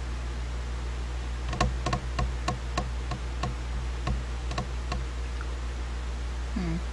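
Light tapping: about a dozen quick fingernail taps on a glass craft mat, unevenly spaced at three to four a second, starting about a second and a half in and stopping around five seconds.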